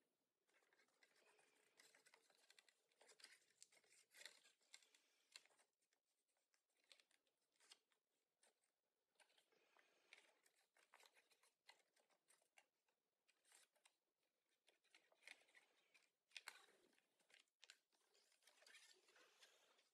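Faint crinkling and rustling of a sheet of origami paper being folded and creased by hand, with many small irregular crackles.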